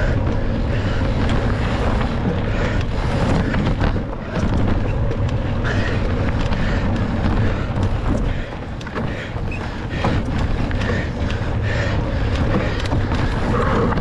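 Wind buffeting the microphone of a camera riding on a cross-country mountain bike at race speed, with frequent short knocks and rattles from the bike over rough ground.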